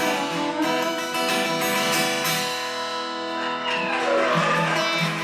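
Acoustic guitar strumming the closing chords of a song, the chords left ringing.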